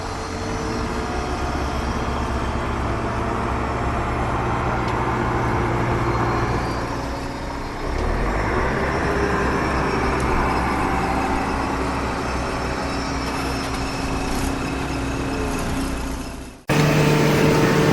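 A heavy engine or vehicle running with a steady rumble, which shifts about eight seconds in. Near the end it cuts off abruptly and gives way to a louder, steady pitched tone.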